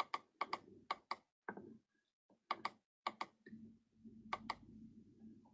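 A dozen or so sharp clicks from a computer mouse and keyboard being used, many coming in quick pairs, with a faint low hum coming in about three and a half seconds in.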